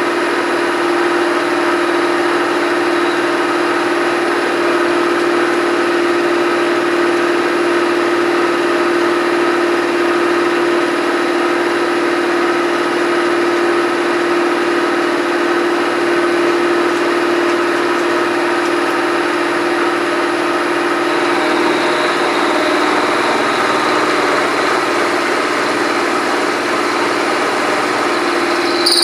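Knee milling machine running steadily with an end mill cutting into a metal block: a constant machine hum with a strong even tone. The sound shifts slightly about three-quarters of the way through.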